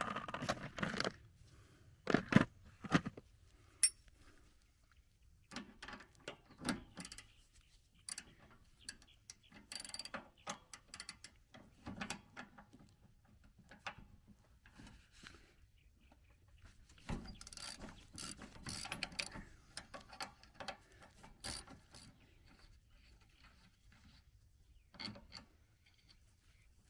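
Ratchet wrench and socket clicking in short, irregular runs while loosening the nut on a riding mower's steering drag-link ball joint, with scattered metal clinks and knocks between runs.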